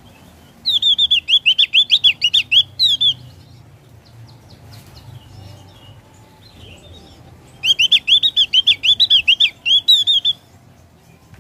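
Javan grey-throated white-eye (opior jawa) singing in full voice: two bursts of rapid, high, chattering notes, each about two and a half seconds long, with a few soft chirps in between.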